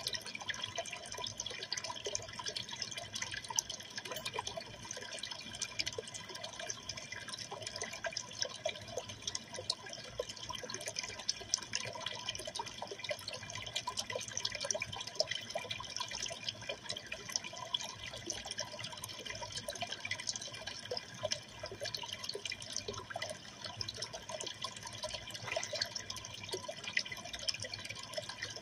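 Aquarium water trickling and splashing steadily, a dense stream of small drips and bubbles.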